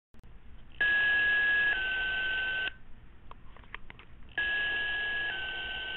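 Two-tone sequential fire paging tones over a two-way radio: a higher tone for about a second steps down to a slightly lower tone for about a second, twice, with radio hiss and a few clicks between. They are the dispatch alert that pages the fire company out to a call.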